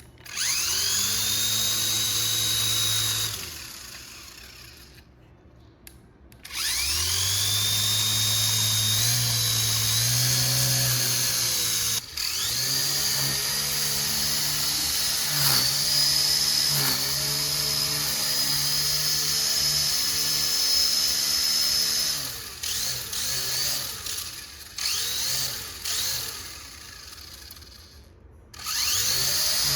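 Small electric motor of a toy RC car whining as it spins up, rising in pitch and then holding a steady high whine. It runs briefly near the start, then for a long stretch, then in stop-start bursts before cutting off suddenly and spinning up again at the end.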